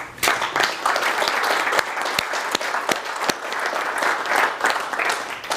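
Audience applauding: many people clapping steadily, thinning out near the end.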